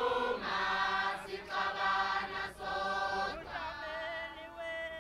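Group of voices singing a Zulu ingoma chant in held notes, phrase by phrase with short breaks. Near the end a single voice carries a long line that slides down and holds.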